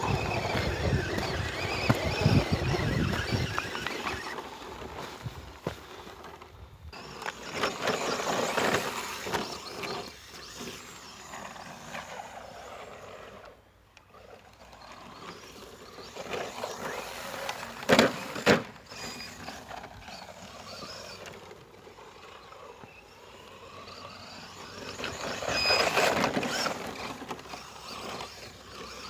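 Brushless electric motor and tyres of a 1/10 ECX Torment short-course RC truck driving over rough ground, swelling as it speeds up and passes and fading as it drives away, several times over. Two sharp knocks come in quick succession about two-thirds of the way through.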